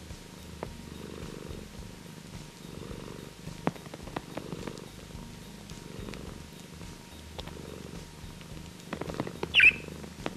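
A Scottish Straight cat purring steadily, the purr swelling and fading with each breath about every one and a half seconds. A few soft clicks are heard, and near the end a budgerigar gives one short, sharp chirp, the loudest sound.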